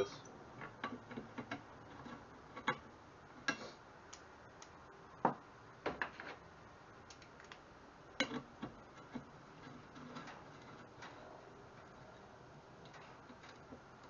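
Scattered, irregular light metal clicks and taps as a bolt is fitted and turned by hand in a steel pedal-assembly bracket, with a hand tool knocking against the parts now and then.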